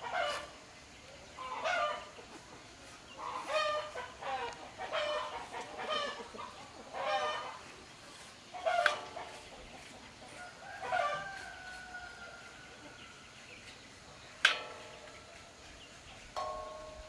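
Chickens clucking and calling in short repeated bursts, with one longer drawn-out call about two-thirds of the way through. A single sharp knock sounds near the end.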